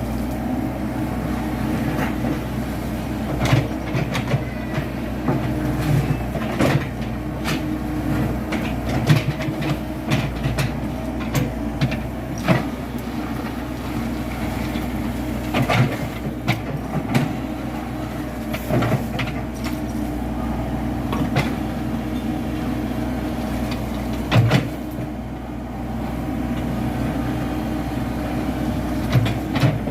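Komatsu PC78 hydraulic excavator's diesel engine running steadily under work, with frequent sharp knocks and clanks as the machine levels earth.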